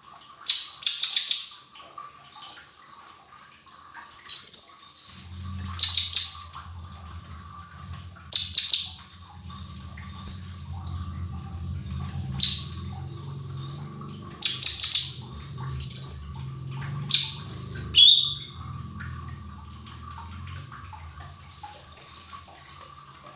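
Cucak ijo mini (lesser green leafbird) giving short, sharp, high chirping calls, about a dozen spaced a second or two apart, some sliding up in pitch and some down. A low hum comes in after about five seconds and fades out near the end.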